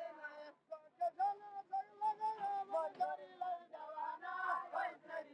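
Singing voices carrying a melody, with sharp clicks scattered through it.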